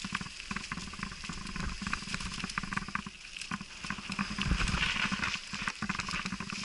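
Mountain bike riding fast down a dirt trail covered in dry leaves: tyres crunching through the leaves and the bike rattling and clattering over the bumps, with a louder, rumbling stretch about four and a half seconds in.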